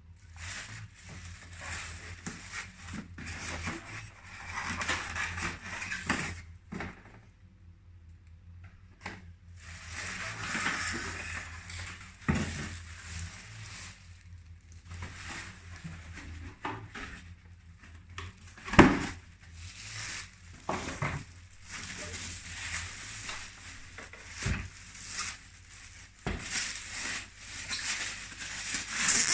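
Packaging being handled during unboxing: plastic and cardboard rustling and crinkling in irregular bouts, with occasional sharp knocks, the loudest about two-thirds of the way through, over a low steady hum.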